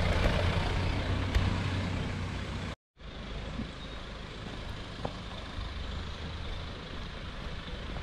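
A motor vehicle running with a steady low rumble, fading slightly, which cuts off abruptly about three seconds in. After the cut comes a quieter steady outdoor hiss, with one faint click partway through.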